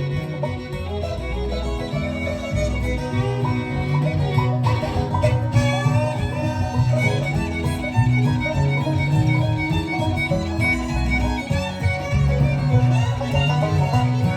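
Acoustic string band playing an instrumental break between sung verses, a fiddle taking the lead over rhythm guitar.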